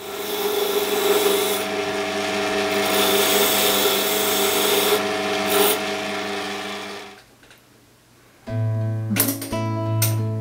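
Key-cutting machine cutting a key: a steady motor hum under a rasping grind, stopping about seven seconds in. Acoustic guitar music starts a second or so later.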